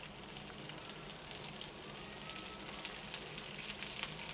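Chicken shami kababs shallow-frying in oil on a flat dosa tawa: a steady sizzle with fine crackling pops, growing a little louder toward the end.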